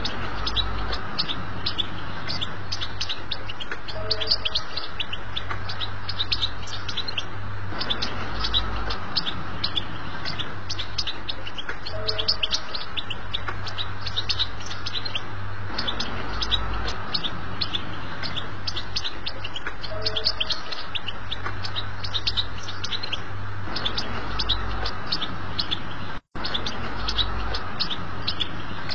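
European goldfinch singing a fast, unbroken chattering twitter, the 'btebta' song used to tutor young goldfinches, over a steady low hum. The sound cuts out for a split second near the end.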